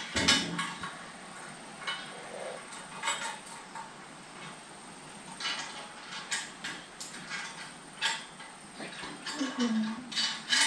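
Irregular metallic clinks and clicks of bolts, washers and a hand tool as the hydraulic pump motor unit is bolted onto the four-post car lift's mounting bracket.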